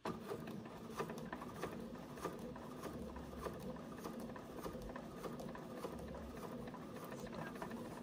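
BERNINA Quilter's Edition sewing machine starting up suddenly and stitching a straight seam at steady speed, a constant hum with rapid needle ticks, as it sews fabric over piping cord.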